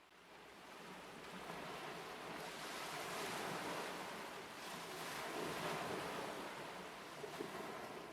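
Ocean waves sound effect: a steady wash of surf that fades in over the first two seconds, then swells and eases.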